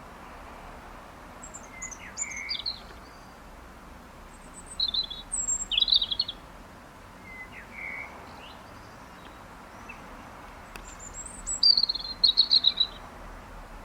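Songbird singing short, quick high phrases in bursts a few seconds apart, over a steady background hiss.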